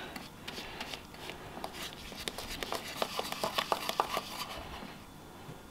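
Tint brush stirring thick bleach paste in a plastic mixing bowl: soft scraping with many quick little clicks and taps against the bowl, busiest in the middle.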